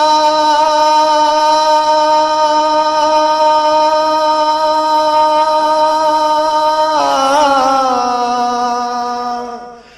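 A man singing one long held note of a Hindi devotional bhajan, very steady for about seven seconds, then wavering and sliding down in pitch before fading out near the end.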